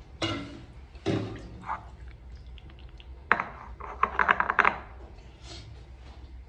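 Kitchen handling noises: a few short knocks and scrapes of utensils and dishes, with a quick run of rattling clicks about four seconds in that lasts under a second.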